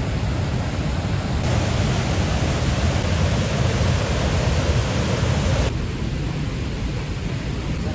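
Monsoon floodwater rushing down the swollen stream and waterfall: a loud, steady rush of water. The hiss turns brighter about one and a half seconds in and drops back a little before six seconds.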